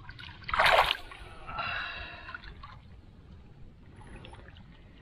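Fish thrashing in a cast net in shallow creek water: one loud splash about a second in, then lighter sloshing and dribbling water as the net is handled. A short breathy gasp follows the splash.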